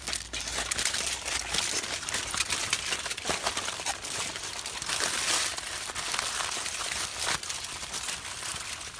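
Aluminium foil crinkling and crackling as hands fold and crumple it shut around a fish, a continuous run of small crackles.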